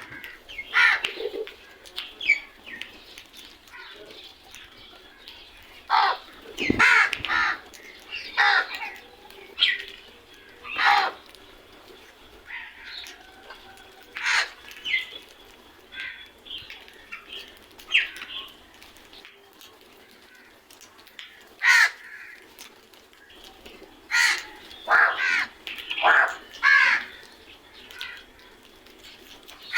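Crows cawing: short harsh calls at irregular intervals, some coming in quick runs of two or three.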